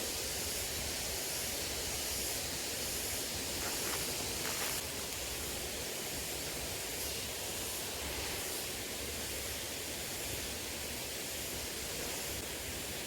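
Small river flowing: a steady, even rush of water.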